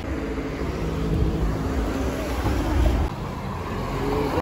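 Road traffic: a car passing close by, its engine and tyre noise growing louder to about three seconds in and then easing off.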